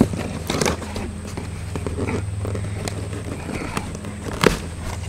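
Packaging and plastic containers being handled while a box is unpacked: rustling and a few sharp knocks, the loudest near the end, over a steady low hum.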